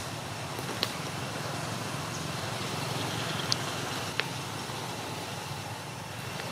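Steady outdoor background rumble and hiss, with three short sharp clicks spread through it.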